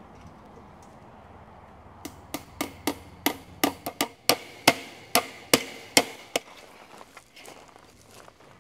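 Hammer driving fence staples into a fence post to fix stretched wire fencing: about fourteen sharp, slightly ringing blows, about three a second, starting about two seconds in and stopping a couple of seconds before the end.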